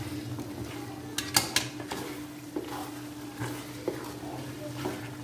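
A spatula scraping and knocking against an aluminium pot while stir-frying chopped vegetables and chicken, with a few sharper clinks about a second and a half in. A steady low hum runs underneath.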